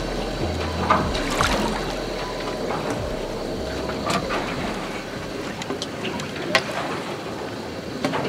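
Sea water sloshing and trickling against the hull of a small fishing boat, with a few short sharp knocks or splashes.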